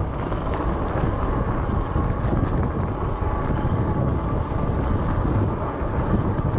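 Wind buffeting the microphone as a steady low rumble while riding a fat-tyre e-bike, with tyre noise underneath.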